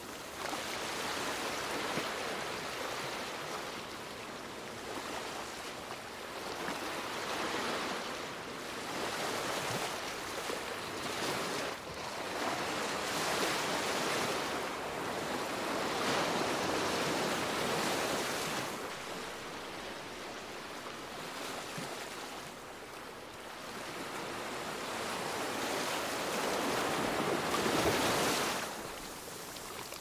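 Ocean waves washing in and breaking, a continuous rushing noise that swells and eases every few seconds, with the loudest swell near the end.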